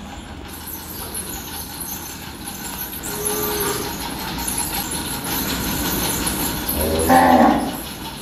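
A cow in a cowshed mooing once near the end, a single short, loud call over steady background noise.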